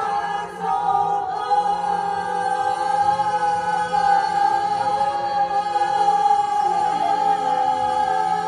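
Choir singing a Christmas song, holding one long note for most of several seconds over a steady low note, played through a television's speaker.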